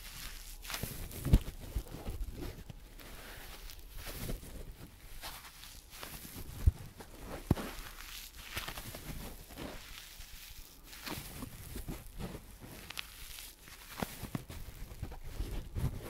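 Hands squeezing and rubbing a sponge close to a microphone, making soft irregular rustling and scratching, with a few sharper thumps about a second in and twice around seven seconds.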